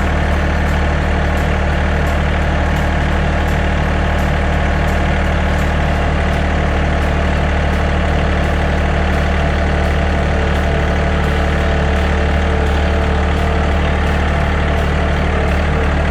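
Farm tractor engine running steadily under way, heard loud and close from the driver's seat.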